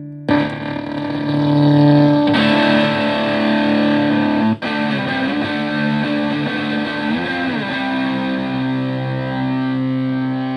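Electric guitar played through a Zonk Machine fuzz pedal reproduction, with thick, distorted sustaining notes. A new note is struck just after the start. Between about five and seven and a half seconds in, the pitch bends up and down before settling into held notes.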